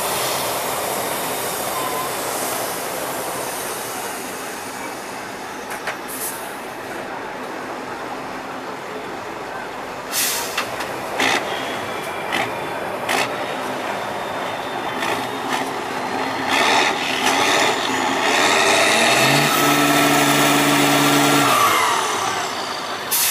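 Tatra 8x8 trial truck's diesel engine labouring under load, with several short sharp hisses of air from about ten seconds in. From about sixteen seconds the engine revs hard with its pitch sliding up and down as the truck climbs a steep bank, loudest near the end.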